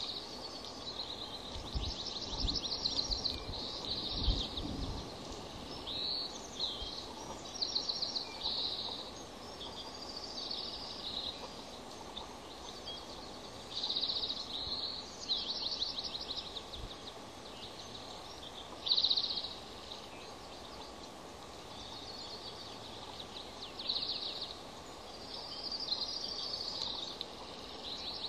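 Bird calls: short bouts of high, rapid chittering trills repeating every second or two, over a steady outdoor hiss, with a couple of low rumbles in the first five seconds.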